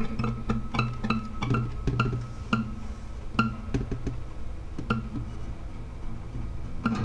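Acoustic guitar music: single plucked notes in a repeating figure, about three a second at first, thinning to scattered notes after about three seconds.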